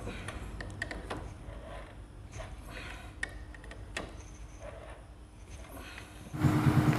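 Scattered metal clicks and taps from a wrench tightening the clutch pressure-plate spring bolts on a Hero Glamour motorcycle's open clutch. About six seconds in, the bike's single-cylinder engine comes in suddenly, much louder, running steadily.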